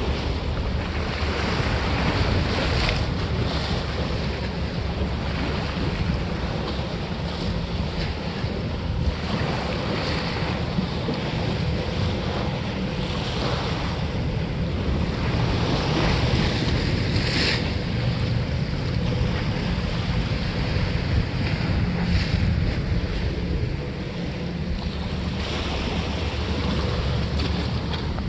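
Wind buffeting the microphone over the steady wash of sea waves against the granite blocks of a breakwater, with a few brief louder splashes or gusts.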